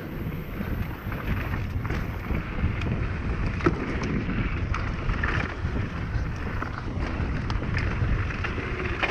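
Mountain bike rolling fast down a dirt trail: wind buffeting the microphone and tyres rumbling over the ground, with scattered clicks and rattles from the bike over bumps.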